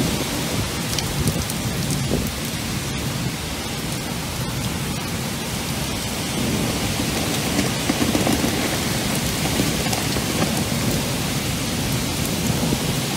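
Heavy rain pouring down in a strong wind: a steady rushing hiss with a low rumble underneath.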